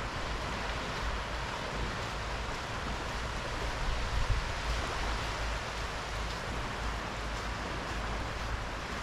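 Small, gentle sea waves washing steadily onto a flat sandy shore: an even surf hiss with a low rumble underneath, swelling slightly about halfway through.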